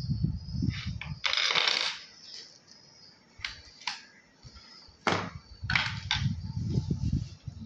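Plastic action-camera mounts and accessories being handled and set down on a wooden table: a rustle of plastic packaging about a second and a half in, then a run of separate sharp clicks and knocks.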